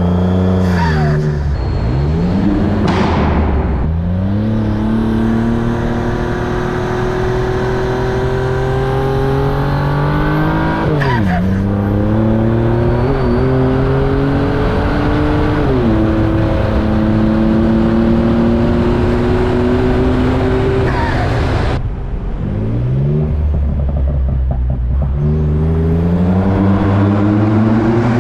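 Twin-turbo 3.5-litre EcoBoost V6 in a Raptor-swapped Ford Transit van, accelerating hard: its pitch climbs, drops sharply twice as at upshifts, holds high, then cuts off suddenly as the throttle closes before revving up again near the end.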